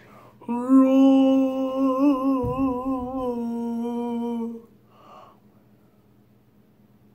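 A boy humming one long, slightly wavering note for about four seconds, then stopping.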